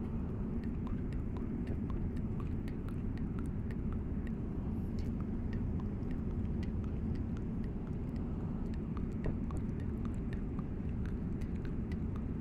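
Steady low drone of an airliner cabin, with many small irregular clicks and ticks from fingers handling a rubber-tipped in-ear earphone close to the microphone.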